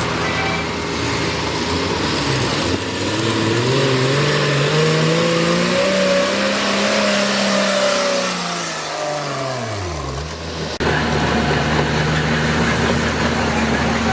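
Heavy earthmoving machine's engine revving up over several seconds, holding high, then dropping back down about ten seconds in and settling to a steady lower running speed.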